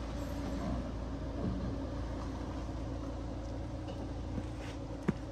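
Tank 300 SUV's engine running steadily under load as it crawls up a steep mud slope. A single sharp click about five seconds in.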